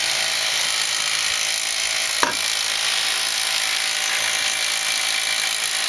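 A steady hissing noise throughout, with a single light knock about two seconds in.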